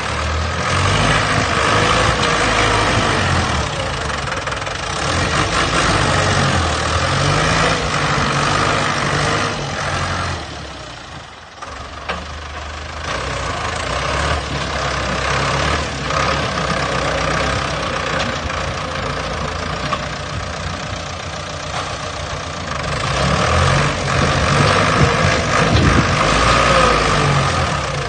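Heavy earth-moving machine engine running under load, its pitch rising and falling as it revs, with a brief drop in level about eleven seconds in.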